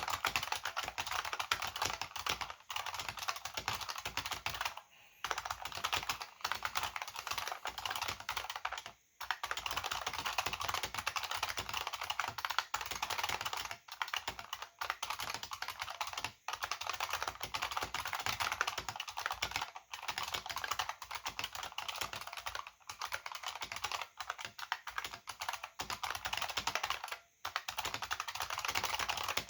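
Fast continuous typing on an AT&T KBD 305B-AA keyboard with buckling-spring switches and PBT keycaps: rapid clicky keystrokes with a short pause every few seconds.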